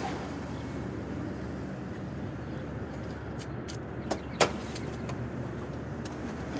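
A car's steady low running hum with street traffic, with a sharp click of a car door at the start. About three and a half seconds in come a few clicks and a knock from the taxi's passenger door handle and latch as the door is opened.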